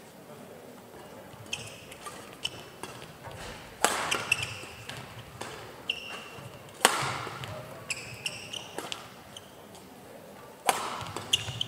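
Badminton doubles rally: rackets crack against the shuttlecock, the hardest hits about four seconds in, again near seven seconds and near the end, each with a short hall echo. Between the hits, players' shoes squeak in short bursts on the court floor.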